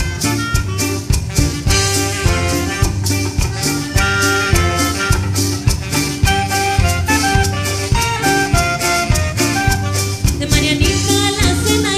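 Cumbia band music: a clarinet melody over a steady percussion beat and bass.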